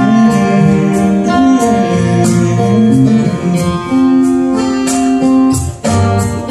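Band music between sung lines: strummed guitar chords over sustained chord tones and a bass line.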